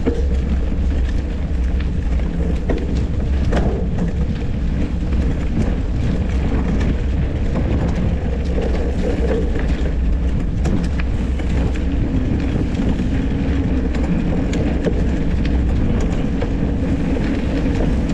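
Mountain bike ridden over a rough dirt trail: a steady, heavy rumble from wind on the microphone and tyres on the ground, with the bike rattling and scattered clicks and knocks as it goes over bumps.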